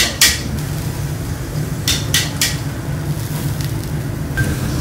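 Metal grill utensils clattering: a clank just after the start, then three quick clinks around two seconds in, over a steady low hum.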